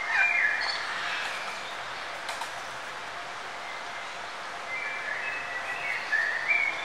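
Birds chirping over a steady background hiss, with a cluster of short chirps at the start and another from about five seconds in.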